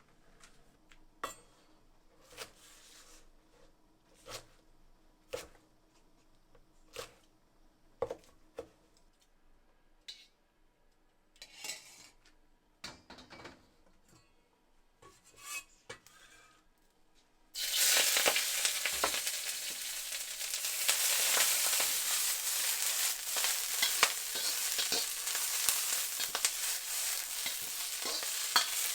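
Scattered light knocks and clicks of kitchen utensils, then about two-thirds of the way through, food goes into hot oil in a pan and a loud, steady sizzle of frying starts suddenly.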